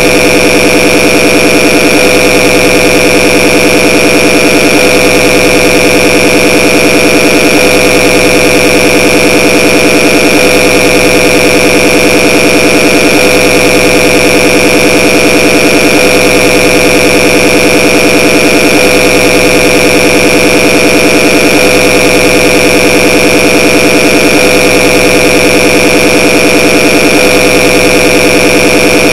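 A loud, unchanging harsh buzz made of many layered steady tones, with a rapid flutter running through it, played on as an annoying noise.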